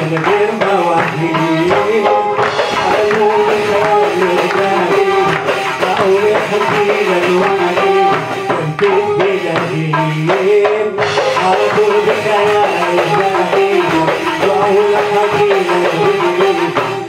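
Live Arabic-style music: a wavering, ornamented melody, with singing, over electronic keyboard and a steady drum rhythm.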